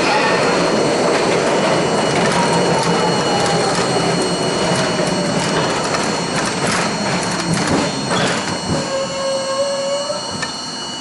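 R42 subway train running on an elevated steel track and slowing into a station: a motor-and-gear whine that falls in pitch as the train brakes, over steady rail and wheel noise, with a quick run of clicks from the wheels over rail joints later on.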